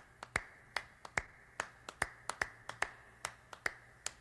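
Finger snaps and claps in a steady beat, about two to three a second: the opening of a backing song, before any singing.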